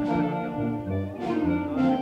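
Concert band playing a pasodoble, with brass to the fore over low bass notes.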